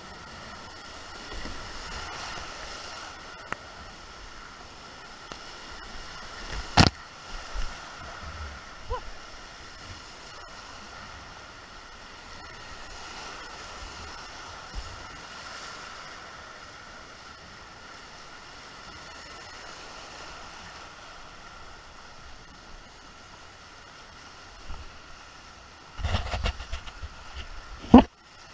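Muddy floodwater rushing along a swollen creek around a small whitewater boat, with the splashes of single-blade paddle strokes. There is a sharp knock about seven seconds in, a cluster of knocks and bumps near the end, and a loud sharp knock just before the end.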